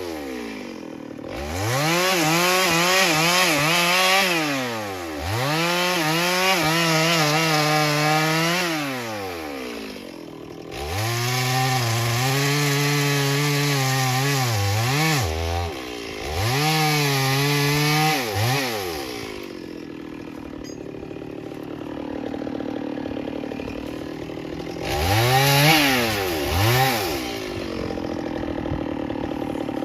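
Chainsaw at high revs cutting wood in two long stretches, its pitch dipping and recovering as the chain bites. It then drops back to idle, with two short throttle blips near the end.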